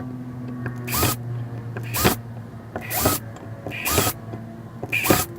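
Background music: a sharp beat about once a second over steady sustained notes.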